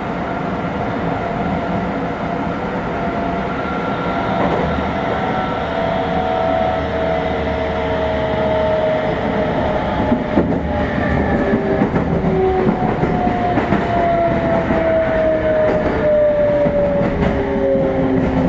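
Meitetsu 3500 series electric train heard from inside the car: the Toyo Denki GTO-VVVF inverter and traction motor whine glides slowly down in pitch as the train slows, steps up to a higher tone near the end, then falls again. Wheel rumble and some rail-joint clacks run beneath.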